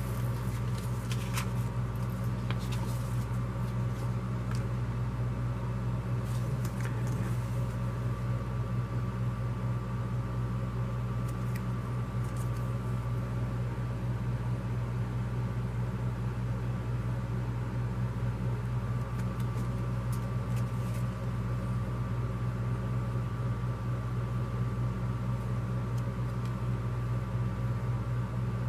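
A steady low room hum with a faint high whine over it, unchanging throughout, with a few soft rustles and clicks of paper flyers and cards being handled.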